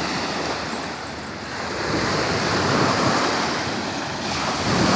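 Small waves washing in over a shallow sandy beach, swelling about two seconds in and again near the end, with wind buffeting the microphone.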